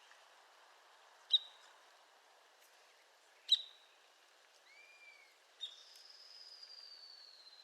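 Arizona woodpecker giving sharp single call notes, three of them about two seconds apart. A short arched whistle and then a long, slowly falling whistle come from another bird in the second half.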